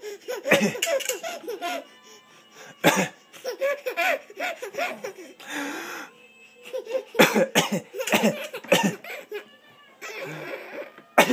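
Several sharp, single coughs, with an eight-month-old baby laughing in high, bubbly giggles in the gaps between them.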